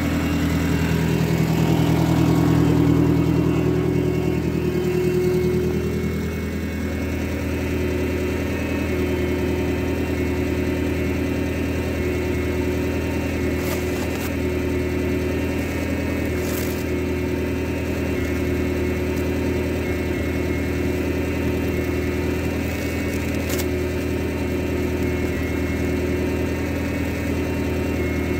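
A skid steer's engine idling steadily, a little louder in the first few seconds. A few brief scratchy sounds come through as the plastic bale wrap is cut with a knife.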